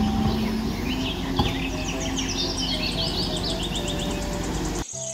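Steady running noise of a Hyundai wheeled excavator's diesel engine and hydraulics as it digs, with birds chirping high over it. The noise cuts off abruptly near the end.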